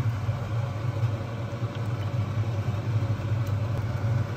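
Kitchen fan running with a steady low hum and a faint even hiss.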